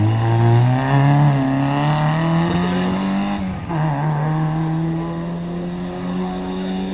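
Small hatchback rally car's engine at high revs as it accelerates out of a hairpin, the pitch climbing, then a quick upshift about three and a half seconds in and a steady pull in the next gear as it drives away.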